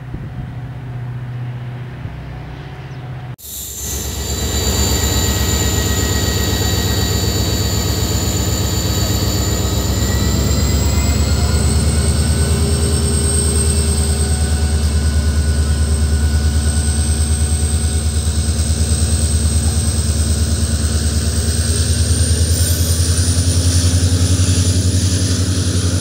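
WDP4D diesel-electric locomotive (EMD two-stroke turbocharged engine) pulling a passenger train away under load: a loud, steady engine throb with a high turbocharger whine that rises in pitch twice as the engine speeds up. For the first few seconds a quieter locomotive engine hum is heard, cut off abruptly.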